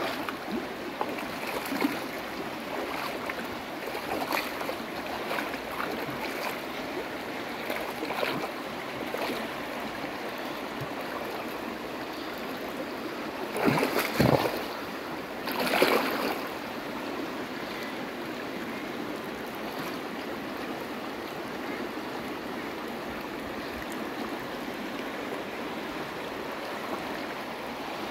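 Shallow river rushing steadily over a stony bed, a constant wash of moving water. About halfway through, two brief louder surges of noise come a couple of seconds apart.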